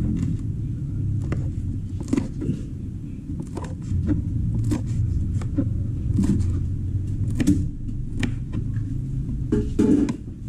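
Knife chopping red chili peppers on a cutting board: irregular sharp taps, often in quick pairs, about one or two a second, over a steady low rumble.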